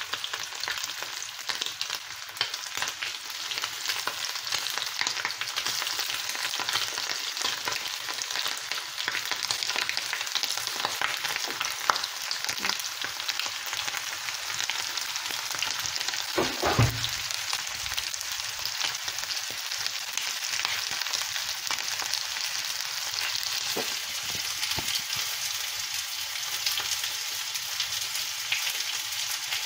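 Raw chicken pieces frying in hot oil in a pan: a steady sizzle and crackle as the freshly added meat starts to cook. One brief low knock sounds a little past halfway.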